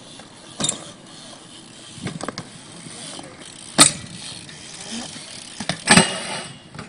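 BMX bike being ridden and landed on a concrete skatepark: sharp impacts of the bike coming down, the two loudest about four seconds in and near the end, with smaller knocks and mechanical rattle of the bike between.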